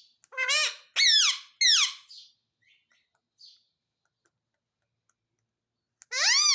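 Indian ringneck parrot squawking: three loud, high-pitched calls that arch and fall in pitch in the first two seconds, then quiet, then another loud call near the end.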